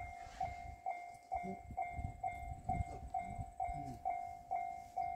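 Japanese railway level-crossing alarm ringing its repeated 'kan-kan' chime, one short ding about twice a second, a steady even rhythm that warns that a train is approaching the crossing.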